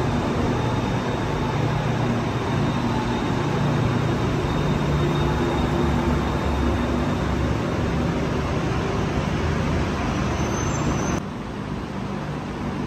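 Bangkok BTS Skytrain electric train running along the platform: a steady rumble with a low hum. About 11 seconds in it drops to quieter station noise.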